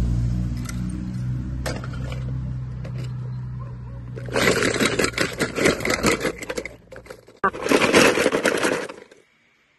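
Die-cast toy cars clattering and rattling against each other in a plastic basket, in two loud bursts: one from about four to seven seconds in, a shorter one near the end. A low steady rumble fills the first few seconds before the clatter.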